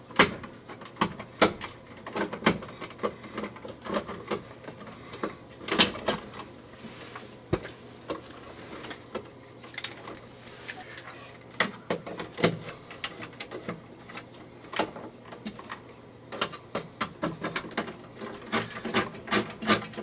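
Scattered clicks and knocks of metal electrical parts being handled as an outlet cover plate is fitted to a metal box extender on an octagon junction box. Near the end come quick runs of small clicks as a screwdriver drives in a mounting screw.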